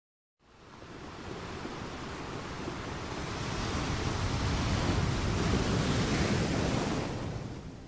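Ocean surf rushing, fading in from silence, building to its loudest near the middle and fading away near the end.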